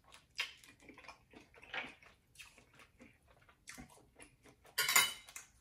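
Close-miked chewing and wet mouth sounds of a person eating snow crab meat: irregular soft smacks and clicks, with one louder mouth noise about five seconds in.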